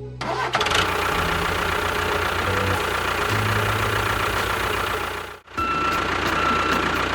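Heavy-vehicle engine running, with a low pulsing rumble. It breaks off briefly about five seconds in, then resumes with a steady high beep over it.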